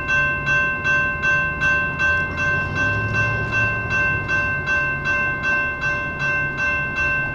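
General Signal Type 2 electronic railroad crossing bell ringing steadily, about two and a half dings a second.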